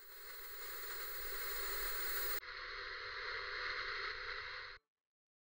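Television static sound effect: a steady hiss whose upper part drops out about halfway through, then cuts off abruptly.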